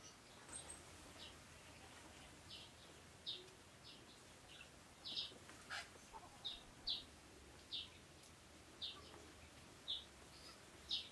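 A bird chirping: short, high notes repeated irregularly, about one a second, over faint outdoor background noise.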